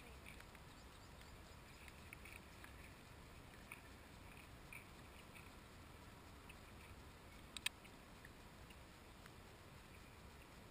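Near silence picked up through a waterproof camera housing, with a few faint ticks and one sharper click about seven and a half seconds in.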